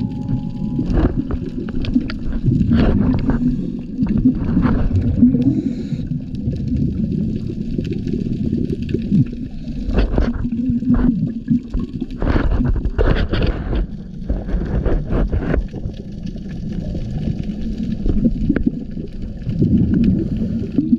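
Muffled underwater sound, as a camera in a waterproof housing picks it up during a dive: a steady low rumble broken by irregular bursts of bubbling and knocks.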